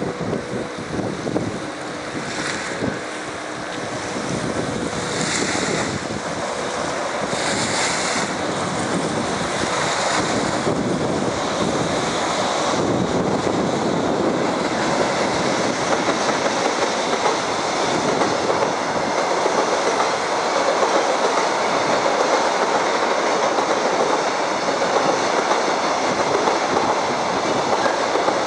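Freight train crossing a steel girder railway bridge: a steady rumble from the locomotive and wagons that grows louder from a few seconds in. Gusts of wind buffet the microphone in the first half.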